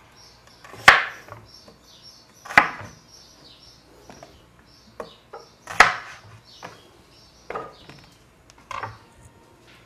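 Pieces of cut onion dropped by hand one at a time onto par-boiled potatoes in a metal baking tray, giving a sharp knock every second or two, the loudest about six seconds in.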